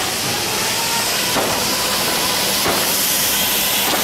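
Spindle veneer peeling lathe running, its knife peeling veneer from a turning log: a steady loud hiss over a low hum, with a faint tick about every second and a quarter.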